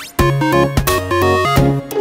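Electronic background music: a quick run of short pitched synth notes over a bass line.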